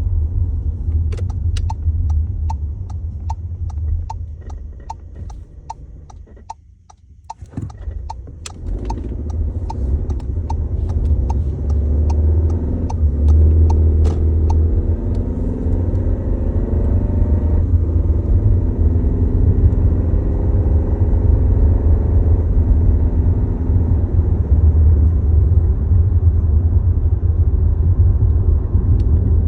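Low rumbling vibration noise from a 2022 VW Tiguan SE R-Line with its start-stop system active. A regular ticking, about two a second, runs through the first half. The sound drops away briefly about seven seconds in, then the rumble comes back louder and stays steady.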